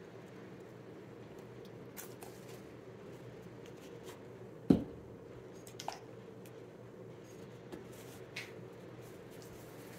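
Plastic paint bottles handled and set down on a tabletop: a few light clicks and ticks and one sharp knock about halfway through, over a low steady room hum.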